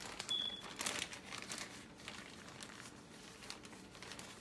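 Crinkling and rustling while chicken wings are breaded for frying, busiest in the first two seconds and then sparser.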